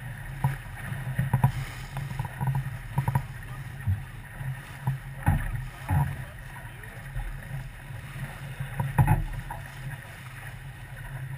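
Sounds aboard a small boat on the water: a steady low rumble with irregular thumps and splashes, a few knocks standing out about five seconds in and again about nine seconds in.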